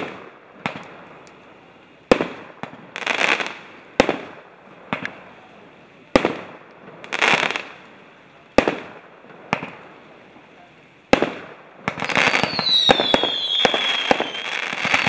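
Jorge M52 'Meduza' firework battery firing: a sharp bang about every two seconds, several followed by a crackling burst. From about twelve seconds in, the shots come thick with dense crackling and whistles falling in pitch.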